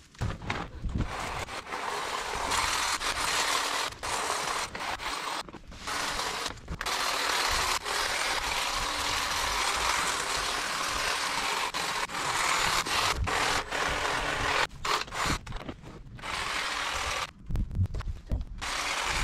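Cordless hedge trimmer running, its reciprocating blades cutting through shrub foliage. It runs in long stretches with several brief stops as the trigger is released, the stops coming more often near the end.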